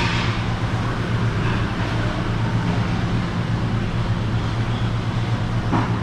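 Steady low mechanical hum under a constant hiss, with a short scraping noise near the end.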